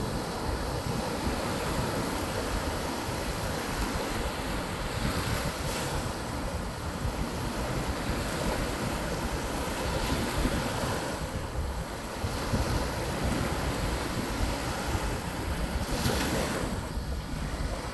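Small waves breaking and washing up a sandy beach, a steady surf wash that swells and eases as each wave comes in, with wind buffeting the microphone.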